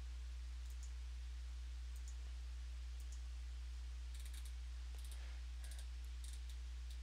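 A steady low electrical hum, with scattered faint clicks from work at a computer, clustered toward the second half.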